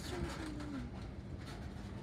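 Freight train's tank cars rolling slowly past on the rails, a steady low rumble, with a short falling tone in the first second.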